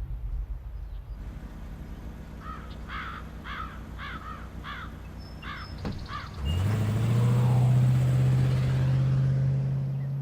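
A bird cawing about six times in a row over a low rumble. About six seconds in, a loud, steady, low-pitched drone like a motor starts with a short rise in pitch and then holds.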